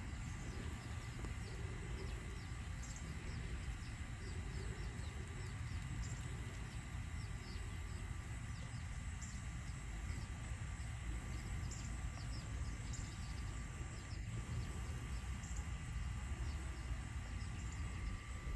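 Robot lawn mower's electric motors running with a faint steady whine as it drives its spiral cut. Birds chirp in many short high calls over a low steady rumble.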